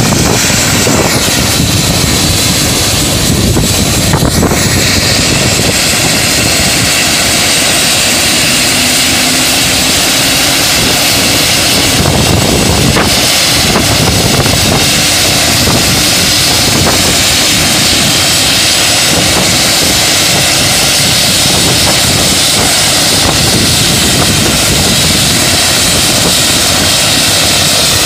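Eurocopter EC145 helicopter running on the ground with its main rotor turning: a loud, steady mix of turbine whine and rotor noise.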